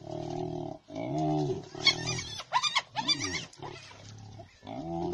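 Spotted hyenas calling as a group: repeated low groans that rise and fall in pitch, about half a second each, with a quick run of higher squealing calls about two to three and a half seconds in.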